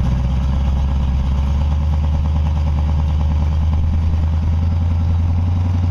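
Indmar Monsoon 350 marine V8 inboard running steadily at idle, drawing propylene glycol antifreeze through its raw-water inlet to winterize the cooling system.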